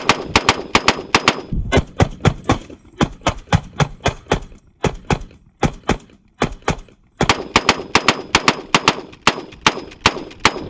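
Rapid rifle fire from a homemade rotating twin-rifle gatling-style rig, several shots a second in an uneven string with a couple of brief pauses.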